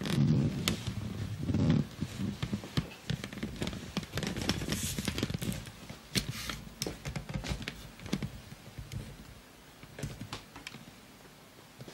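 Handling noise picked up by a camcorder's built-in microphone: irregular rustling, clicks and knocks, with low rumbling bumps in the first two seconds.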